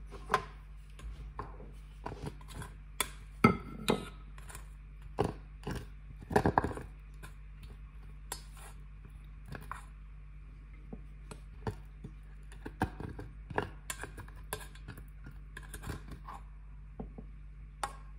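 Stainless steel saucepan clinking and knocking as steamed rice is tipped and shaken out of it onto a ceramic plate, with irregular sharp knocks, the loudest a few seconds in. A low steady hum runs underneath.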